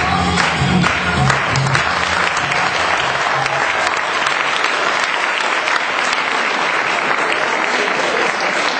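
Audience applauding at the end of a stage dance, over the end of the dance song's music, which stops a few seconds in.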